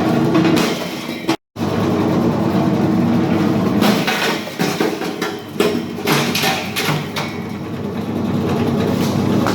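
Ice-block crushing machine running, with irregular sharp crunches and knocks as ice is ground.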